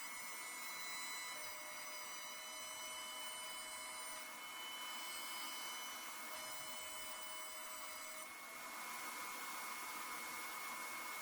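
CNC router running a cutting job: a steady mechanical hiss with several high-pitched motor whines. The whines cut out and come back every couple of seconds as the machine changes moves.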